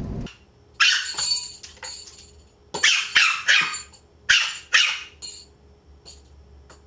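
Small Pomeranian dog barking in short, sharp, high-pitched yaps, mostly in pairs, about six in all, at the closed front door after being left home alone.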